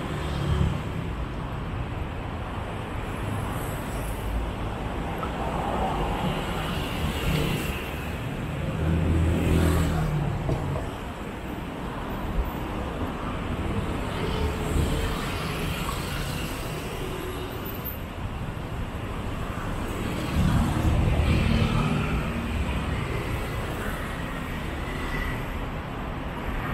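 Street traffic: a steady hum of engines and road noise, with vehicles passing close about nine seconds in and again about twenty seconds in.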